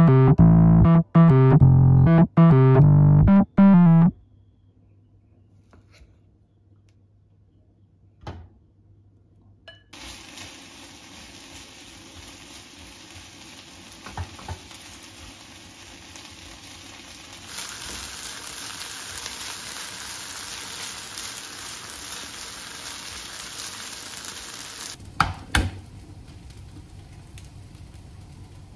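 Piano background music for the first four seconds. After a few quiet seconds, rice and sliced green onion sizzle steadily as they are stir-fried in a frying pan, louder from about halfway through. The sizzle stops near the end, followed by a couple of sharp knocks.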